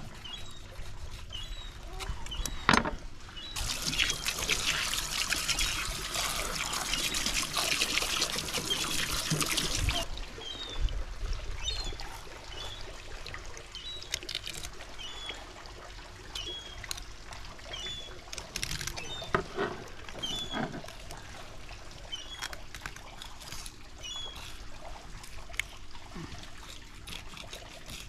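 Water from a hose running and splashing onto a plastic fish-cleaning board for about six seconds, then cut off abruptly. Around it are scattered knocks and scrapes of a fillet knife working a salmon on the board.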